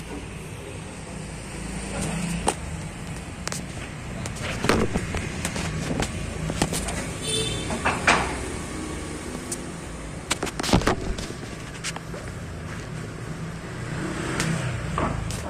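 Long wooden planks knocking and clattering now and then as they are pulled off a pickup's bed and stacked on a tiled floor, over a steady low engine hum.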